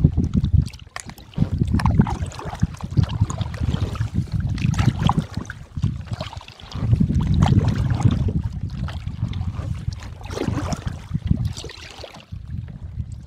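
Kayak being paddled: paddle blades dipping, splashing and dripping, with water lapping at the hull. Gusts of wind rumble on the microphone now and then.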